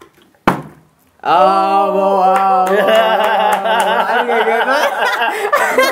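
A sharp knock, then a voice holding one long note, joined by several voices singing or chanting loudly together.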